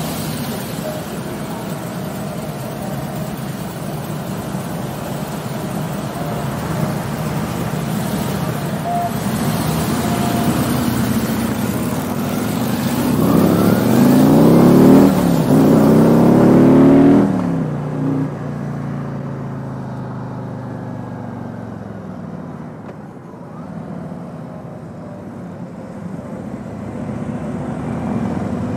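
Harley-Davidson touring motorcycle's V-twin engine running as it rides along the road, with wind rush over the microphone. About halfway through it accelerates hard, its note rising through the gears. Shortly after, the hiss cuts out suddenly and the engine settles to a steady cruise.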